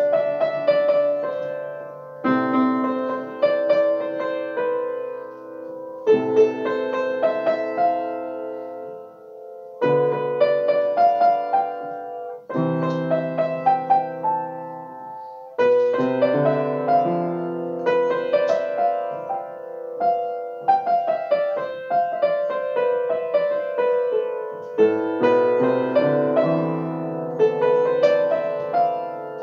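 Solo upright piano playing a melody over held chords and bass notes, with a new chord struck every few seconds.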